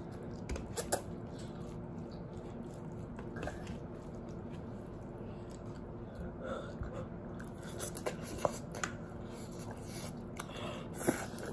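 Quiet eating sounds of instant noodles being forked up and eaten, with scattered light clicks of the fork against the dish and some chewing, over a steady low hum.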